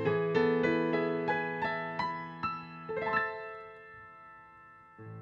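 Piano closing a song: a run of single notes, then a final chord about three seconds in that rings out and fades. A low steady tone comes in near the end.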